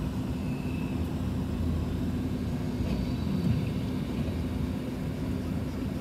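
Vehicle engine and traffic rumble, with a steady low hum.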